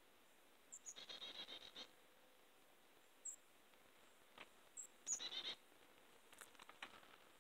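Faint bird calls over near silence: twice, a short high note followed by a quick buzzy chatter, about a second in and again about five seconds in.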